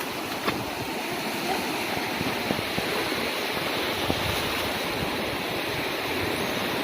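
Sea surf washing on the shore, a steady rushing noise.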